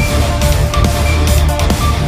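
Loud background music with a driving beat and heavy bass.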